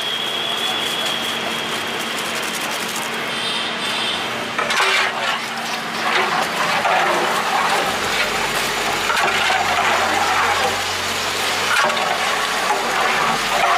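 Metal ladle stirring thick dal in a large metal cooking pot, with irregular scraping and clinking against the pot from about five seconds in. A low steady hum joins about eight seconds in.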